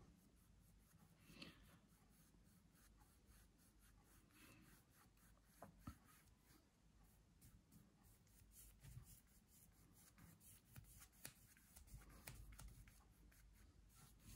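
Faint, repeated strokes of a large brush blending wet oil paint over a cotton canvas.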